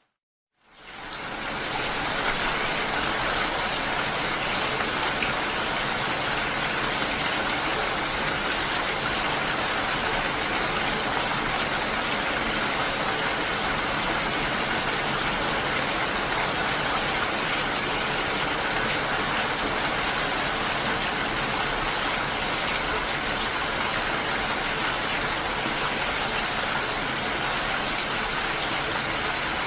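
Steady rain falling, an even hiss with no breaks, fading in after a brief gap of silence at the start.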